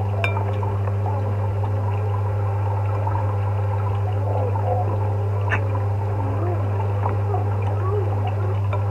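A steady low hum throughout, with faint wavering sounds behind it. A metal fork gives a few light clicks against a ceramic bowl, once just after the start and again about five and a half seconds in.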